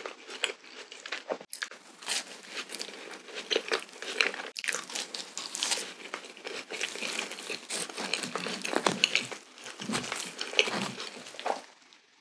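Close-up chewing of a soft glazed yeast donut: a dense, irregular run of small wet clicks and sticky mouth sounds with no words, stopping just before the end.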